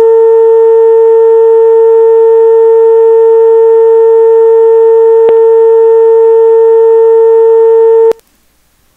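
A steady tone of about 452 Hz, one tone of a two-tone sequential fire paging signal (the medical page) played back from a scanner recording. A click about five seconds in is where the looped selection starts over, and the tone cuts off about eight seconds in.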